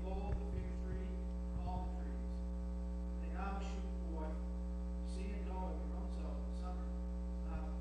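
Steady electrical mains hum with many overtones. Behind it, a faint voice reads aloud off-microphone in short phrases.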